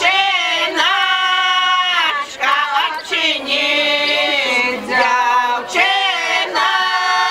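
A women's village folk choir sings an unaccompanied Belarusian folk song. Several voices hold long notes together in phrases a couple of seconds long, with short breaks between them.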